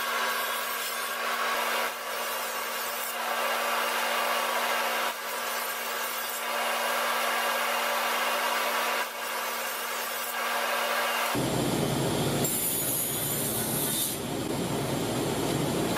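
Table saw running with a steady hum while its blade rips through large wood panels. About eleven seconds in, the sound changes abruptly to a fuller, lower noise as the saw crosscuts a wooden strip into short blocks.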